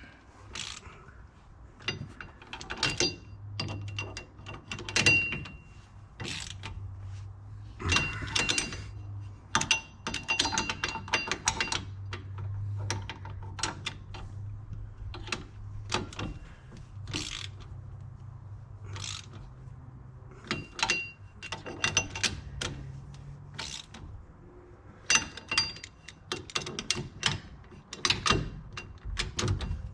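Hand socket ratchet clicking in short runs, with metal clanks, as the bolts holding a rear wheel hub assembly are tightened down.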